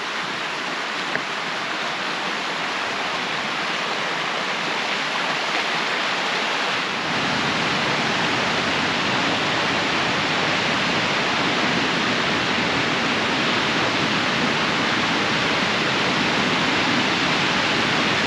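Steady rush of water from a beck and waterfall, Cotter Force. About seven seconds in it becomes fuller and deeper and a little louder.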